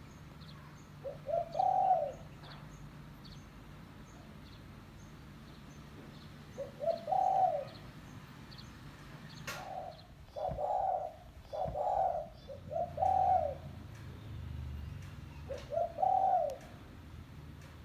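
Spotted dove (tekukur) cooing: repeated phrases of a few short notes running into a longer, arched coo, about every five seconds, with a quicker run of coos in the middle.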